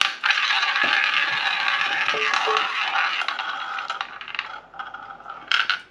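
Ball whirring and rattling around a spinning toy roulette wheel of a shot-glass drinking game. The rattle is loud for about four seconds, then slows into scattered clicks with a last brief clatter near the end as the ball settles into a pocket.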